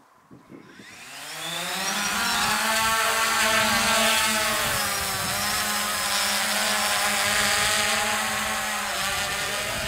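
DJI Phantom quadcopter's propellers spinning up with a rising whine about a second in, then a loud, steady multi-toned buzzing whine as it lifts off and climbs.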